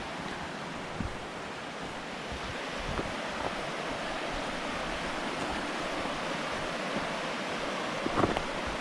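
Steady rushing outdoor noise with a few soft knocks, the loudest near the end.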